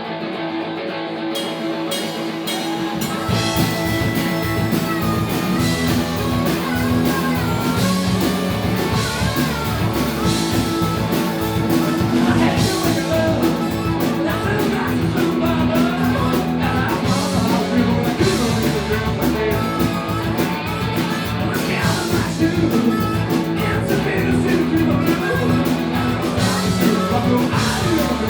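Live rock band playing: guitar, then bass and drums coming in about three seconds in, with singing over the full band.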